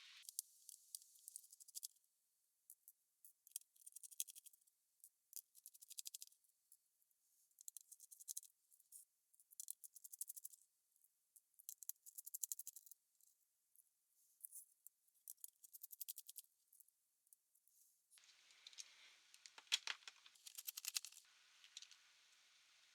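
Short bursts of fine, dense clicking and rattling, coming about every two seconds, from small parts being handled and worked on a laptop. A fuller, louder patch of clicking comes near the end.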